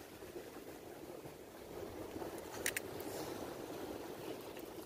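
Surf washing and foaming against breakwater boulders, a steady rushing noise, with a quick double click about two and a half seconds in.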